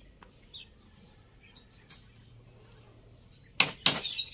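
Hammer blows on split-bamboo floor slats being nailed down: two sharp strikes in quick succession near the end, with a few faint taps before.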